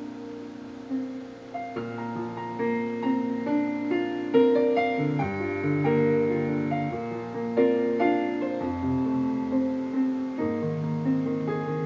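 Piano music with a flowing run of notes over held chords.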